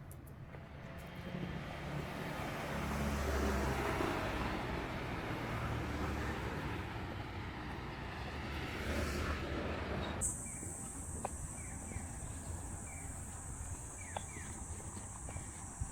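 A road vehicle passes, loudest about three to four seconds in and fading away. About ten seconds in the sound changes abruptly to a steady high-pitched hum with short, repeated chirps.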